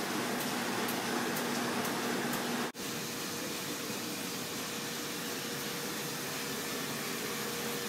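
Komori Lithrone LS 529+C five-colour sheetfed offset press with coater running: a steady mechanical whir and hum with faint ticks about twice a second. The sound cuts out for an instant near three seconds in, after which a steady, slightly higher hum goes on.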